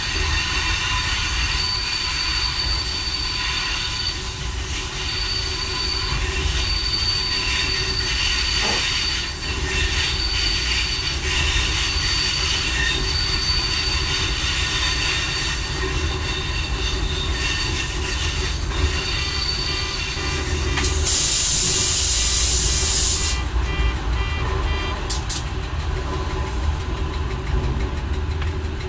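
Y1 diesel railcar running along the track, heard from the driver's cab: a steady low rumble with high-pitched wheel squeal coming and going as it takes the curves. About two-thirds of the way through, a loud hiss lasts about two seconds.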